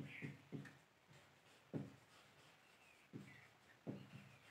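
Faint strokes and squeaks of a marker writing on a whiteboard, about five short sounds spread out with quiet between them.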